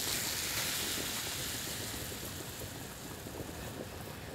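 Butter and fat sizzling in a hot sauté pan as flour is poured in to start a roux, the sizzle slowly easing off.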